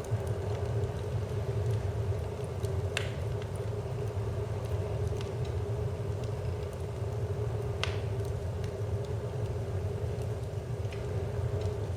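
Wood fire crackling, with irregular sharp pops and snaps, two louder ones about three and eight seconds in, over a steady low rumble.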